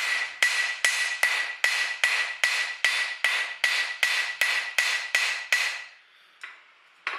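Hand hammer striking hot steel on an anvil in an even rhythm of about fifteen blows, roughly two and a half a second, with a steady metallic ring under them: light planishing blows smoothing hammer marks out of the flattened steel leaf blade. The blows stop about six seconds in, and a single sharp knock comes near the end.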